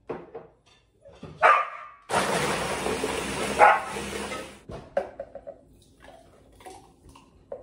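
A countertop blender runs for about two and a half seconds, crushing ice, starting and stopping abruptly. A dog barks just before the blender starts and once more while it runs.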